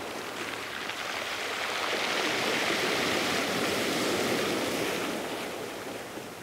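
Sea waves breaking on a beach: the wash of surf swells over about two seconds, holds, then fades away.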